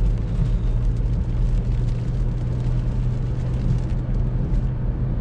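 Steady in-cabin driving noise of a Seat Ateca on a wet road in the rain: a low drone from engine and tyres under the hiss of water spray off the road.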